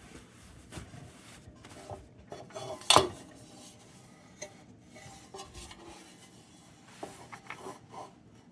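Small metal objects clinking and clattering as they are handled and set down on a work surface, with one sharp knock about three seconds in.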